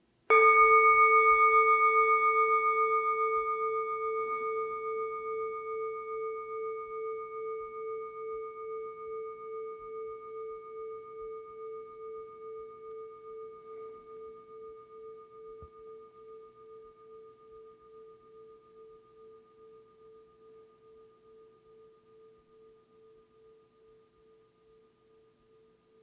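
A singing bowl struck once, its tone ringing on and slowly dying away with a steady wavering pulse.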